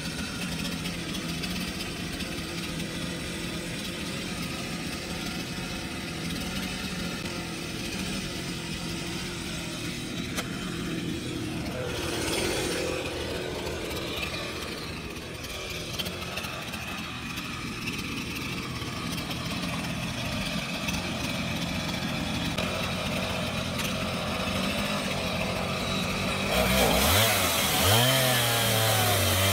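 Gas chainsaw mounted in a chainsaw mill, its engine running steadily, then louder with a wavering pitch from about 27 seconds in as it is revved.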